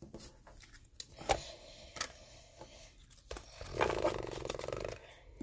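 Hands handling a stack of trading cards, with a few sharp clicks and taps. Near the end comes about a second of scratchy, crinkly ripping, a foil card-pack wrapper being torn open.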